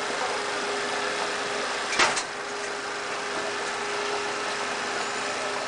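A single sharp metallic clack about two seconds in, from a red steel street post box being opened and emptied into mail sacks. Under it runs a steady hum with a constant engine-like tone.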